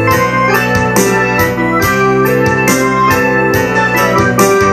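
Ensoniq SD-1 synthesizer keyboard played in full, held chords with a moving melody line, in an electric piano and organ sound. A steady beat of sharp percussive hits, about two a second, runs under it.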